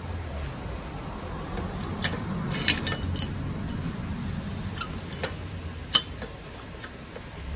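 Sharp metallic clinks and taps as a steel workpiece is handled and repositioned on a workbench: a cluster about two seconds in and one louder clink near six seconds. Underneath, a low steady rumble of wind on the microphone.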